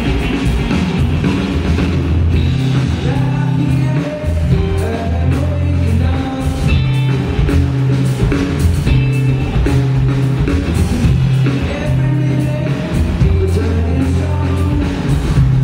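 Live rock band playing: two electric guitars over a drum kit, with bass notes that change every second or so.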